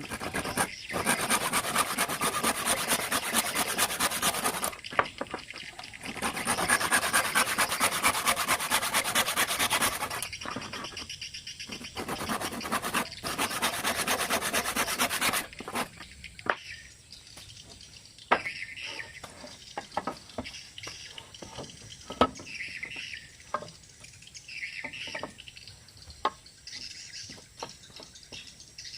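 Hand-worked abrasive scraping, like sanding or filing, in three spells of a few seconds each. After that come scattered light taps and clicks.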